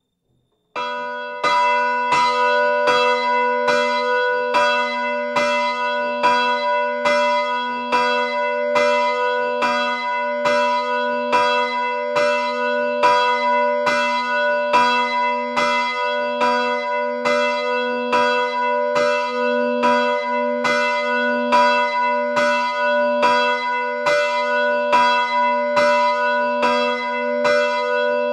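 Two bronze church bells swinging and ringing together, the larger 2004 Feniks Žalec bell on B and the smaller 1929 Luigi Magni bell on D. They strike in an even, rapid rhythm, their tones overlapping and humming on between strokes. The ringing starts abruptly about a second in.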